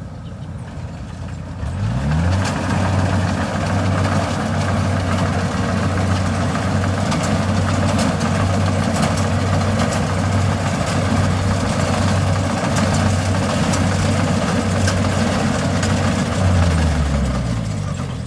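Kubota DC70 combine harvester's diesel engine running: it revs up about two seconds in, holds a steady speed over a wide rushing noise from the machine, then winds down near the end.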